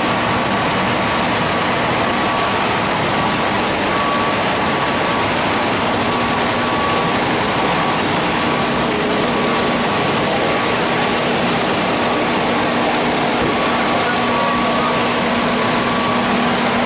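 Spindle veneer lathe running steadily as it peels face veneer from a log: a loud, even machine noise that does not change, with a faint whine over it.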